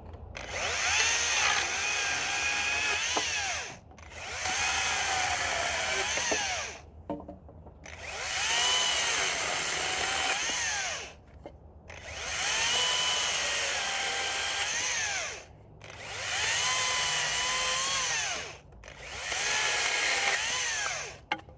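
Makita DUC254 18V brushless battery chainsaw cutting through timber in six runs of about three seconds each, with short pauses as the trigger is released. The electric motor's high whine rises and falls in pitch during each run as the chain bites into the wood.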